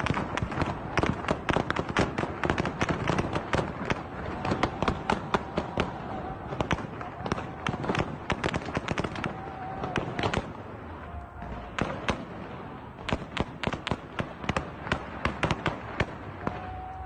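Heavy gunfire: a dense, unbroken stream of shots, several a second, in quick irregular succession.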